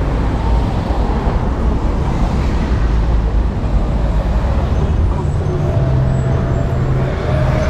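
City street traffic: cars and other vehicles running and passing with a steady low rumble. A pitched engine hum joins about five seconds in.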